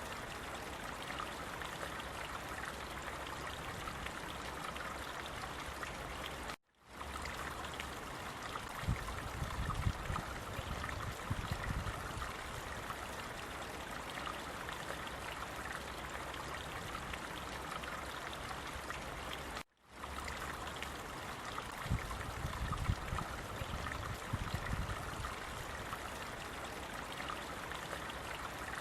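Stream water running steadily, an even rush and trickle, with a low rumble now and then. The sound cuts out abruptly twice for a fraction of a second, once before the middle and once past it.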